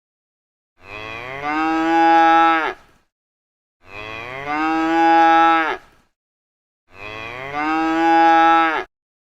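Domestic cow mooing three times. Each moo lasts about two seconds, starting softer and swelling to a loud held call before breaking off.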